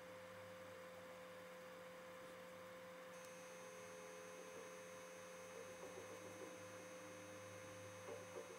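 Near silence: a steady electrical hum over faint hiss.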